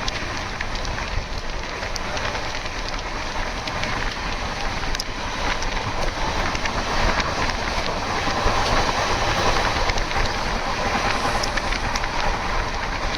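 Passenger train of the 12840 Howrah Mail running: a steady rumble and rush of wheels on the track, with a few sharp clicks now and then.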